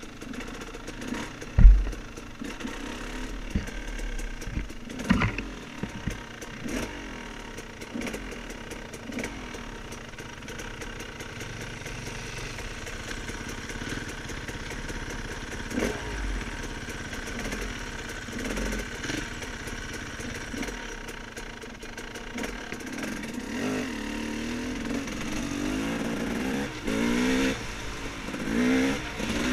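Off-road dirt bike engine running along, with a heavy thump about two seconds in and scattered knocks from the bike over rough ground. Near the end the revs rise and fall again and again.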